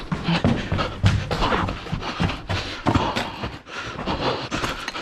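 A person breathing hard and panting, with hurried footsteps and knocks as they move quickly over a debris-covered floor.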